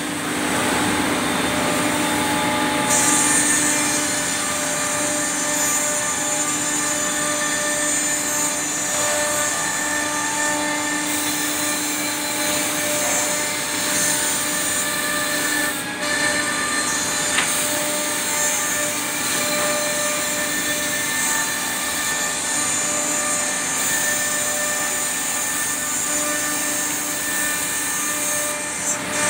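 Multi-spindle CNC tenoning machine running, its router spindles cutting tenons in wooden chair parts: a loud, steady mix of several constant tones over a broad cutting hiss, with a sharp click a little past halfway.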